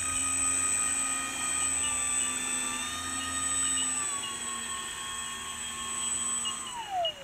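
Electric motors of an RC twin-engine floatplane model whining steadily as it taxis fast on the water. The pitch steps down a little twice, then drops sharply just before the end as the throttle is pulled back.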